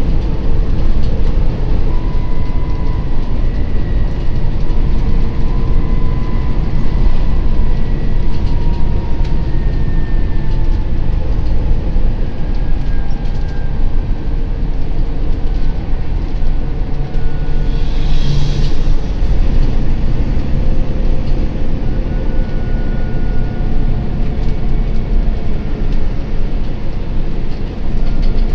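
Upper-deck interior noise of a Volvo B9TL Wright Gemini double-decker bus on the move: a steady low rumble from the six-cylinder diesel and the road, with rattles over a bumpy surface and a faint whine slowly drifting in pitch. A brief hiss comes about two-thirds of the way through.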